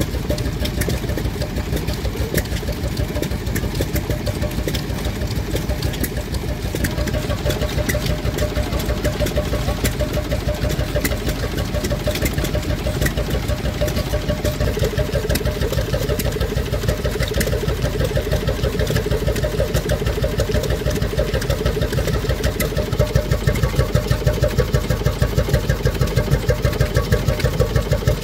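A 12/14 hp Petter S type two-stroke hot-bulb semi-diesel engine running steadily with an even, rapid beat of firing strokes while belt-driving a dynamo. The beat gets louder and sharper near the end.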